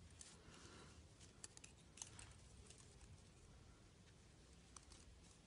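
Faint, scattered light clicks of thin metal double-pointed knitting needles tapping together during hand knitting, a few seconds apart, over near-silent room tone.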